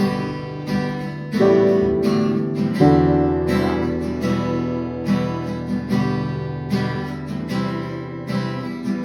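A band's instrumental passage with strummed guitar chords and no singing; a low held note joins about three seconds in.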